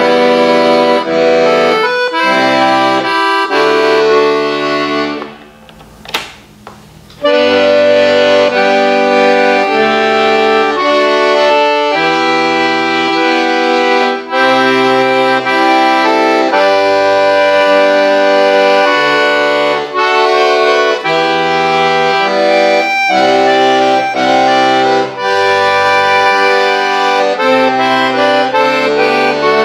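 Solo piano accordion playing held chords and melody in the right hand over changing bass notes from the left-hand buttons. The music pauses briefly about six seconds in, where a single click is heard, then carries on.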